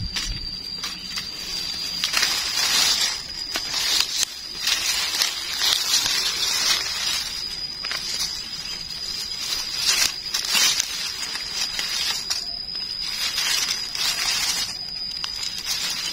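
Dry eucalyptus leaves and grass rustling and crunching in irregular bursts as gloved hands dig and cut mushrooms out of the leaf litter with a knife. A thin, steady high-pitched tone runs behind.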